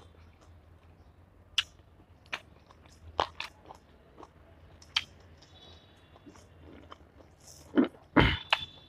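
A person chewing a mouthful of chicken curry and rice close to the microphone, with wet mouth clicks and smacks about once a second and a louder, longer mouth noise near the end.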